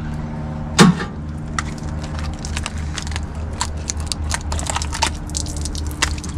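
A live crab struck down on the edge of a metal sign, its shell splitting with one loud sharp crack about a second in, followed by many small crackling, snapping clicks as the shell is broken apart by hand. A steady low hum runs underneath.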